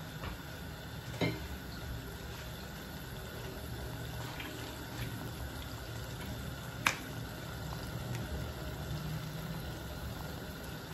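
Tomato and onion broth simmering in a wok on a gas hob: a steady bubbling hiss, with two sharp taps, one about a second in and a louder one about seven seconds in.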